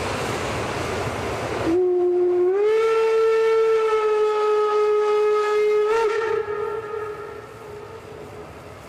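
Steam whistle of a class 52 steam locomotive giving one long blast, starting about two seconds in. It rises slightly in pitch, holds steady for about four seconds, then wavers and fades out. Before it, a steady rushing noise cuts off abruptly.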